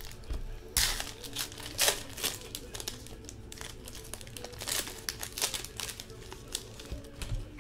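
Crinkling, rustling and tearing of trading-card pack wrappers and box packaging handled by hand, as a 2014 Bowman Sterling football card pack is taken out and opened: irregular crackles, loudest in the first two seconds.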